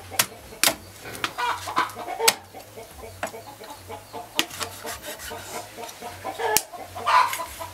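Meat cleaver chopping raw catfish on a wooden chopping block: sharp chops at irregular intervals, with short animal calls in the background.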